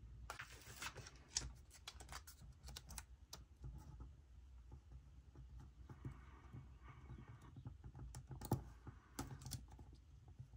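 Faint, scattered small clicks and taps with a little soft paper rustle as a sticker is handled and pressed onto a planner page.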